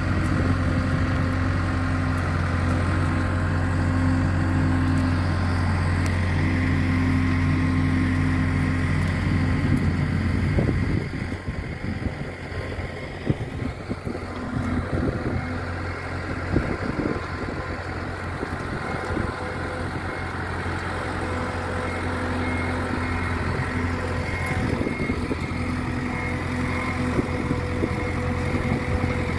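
Engine running steadily at idle, dropping a little in level about eleven seconds in, with a few knocks a few seconds later.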